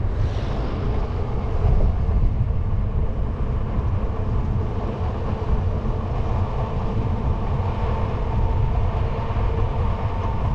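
Wind buffeting the microphone and a steady rumble from a moving bicycle with a knobby tyre rolling on asphalt, with a faint steady hum joining about halfway through. An oncoming car passes with a brief hiss in the first second.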